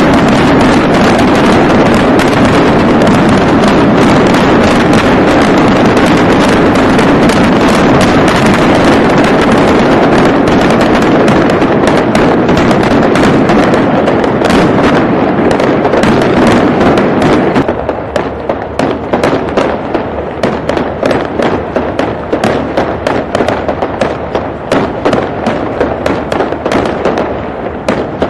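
Fireworks display going off in a dense barrage of rapid pops and crackles over a continuous rumble. About two-thirds of the way through it thins out, becoming quieter with more separate pops.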